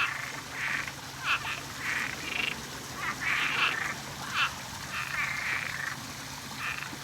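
A chorus of frogs calling: many short, nasal calls, one after another at irregular intervals, several overlapping.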